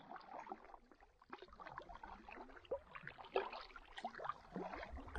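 Faint water sounds around a canoe on a lake: soft, irregular splashing and dripping.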